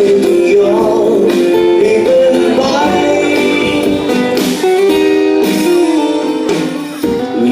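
Live band playing an instrumental break of a Thai pop ballad, with a guitar carrying the melody over drums and cymbals.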